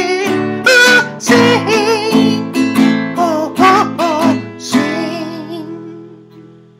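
A man sings long wavering notes over a strummed acoustic guitar. About four and a half seconds in, the song ends on a last guitar chord that rings on and slowly fades away.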